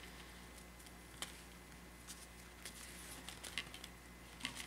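Faint handling noise: scattered light clicks and rustles as yarn is knotted onto a wire coat hanger, a little sharper about a second in and a few together near the end, over a steady low hum.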